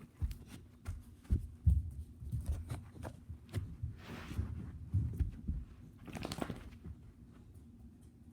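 Irregular dull thumps and knocks, a few of them sharper, with no steady rhythm.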